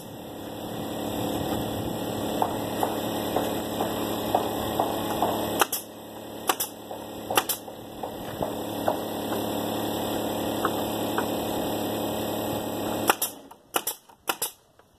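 Pneumatic nail gun firing into wooden fence boards: three sharp shots about a second apart midway, then a quick cluster of shots near the end. Under them a pancake air compressor runs steadily and cuts off suddenly near the end.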